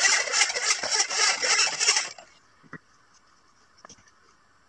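Hand mitre saw cutting through a small wooden strip in a mitre box with quick sawing strokes, stopping about two seconds in; a few faint knocks follow.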